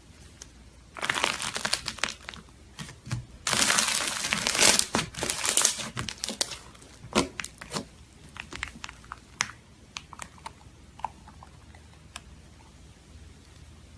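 Slime being worked by hand, crackling and popping: a dense burst of crackles about a second in, a louder stretch from about three and a half to six seconds, then scattered pops that thin out.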